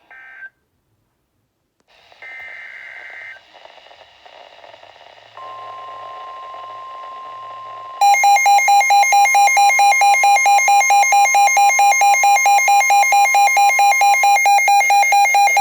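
Emergency Alert System tones opening a new severe thunderstorm warning. About two seconds in there is a one-second screech of data burst. A steady single alert tone follows, and from about halfway a loud pulsing attention tone runs until just before the end.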